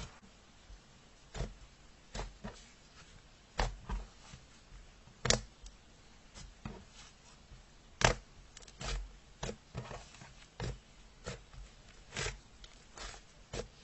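Slime being squeezed and poked by hand, giving irregular sticky clicks and pops, with the loudest pops about five and eight seconds in.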